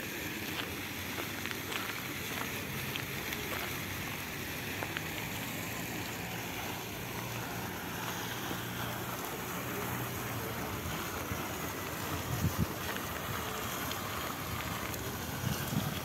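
Steady rushing splash of a single fountain jet falling back into a stone basin, with wind buffeting the microphone a few times near the end.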